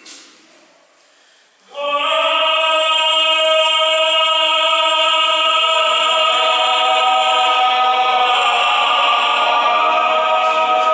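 Several voices sing a chant in harmony, long notes held together as chords. After a faint start they come in loudly all at once about two seconds in, and the chord shifts about eight seconds in.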